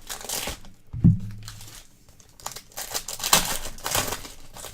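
Trading-card packaging being handled and torn open, crinkling and rustling in several bursts, with one dull thump about a second in.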